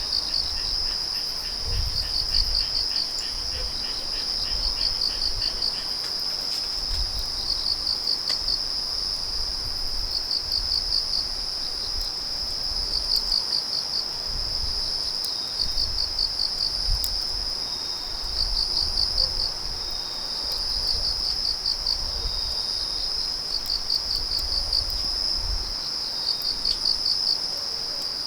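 Autumn night insects (crickets) chirping: a steady high trill with regular bursts of rapid chirps every two to three seconds, over a faint low rumble.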